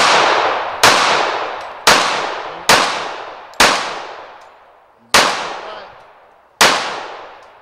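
Semi-automatic pistol fired seven times with live ammunition, shots spaced about a second apart with a slightly longer gap in the middle. Each shot is followed by a long fading echo.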